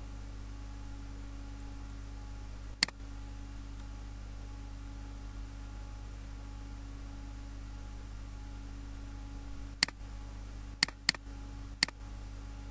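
Computer mouse button clicked five times: one click about three seconds in, then four more in quick succession near the end, over a steady low electrical hum.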